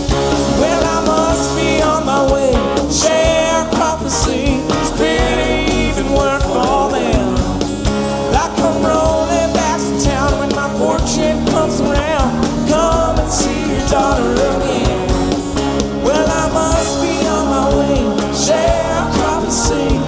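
Live rock band playing an instrumental passage: electric and acoustic guitars over drums, with a lead line bending and gliding in pitch.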